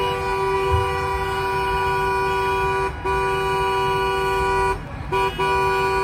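Vehicle horn held in one long, steady two-note blast that cuts out briefly about three seconds in and twice more around five seconds, over the low rumble of slow-moving traffic.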